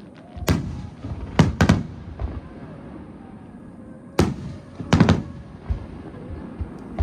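Aerial firework shells bursting overhead in loud booms, three in quick succession, then a short lull and three more, with smaller pops between them.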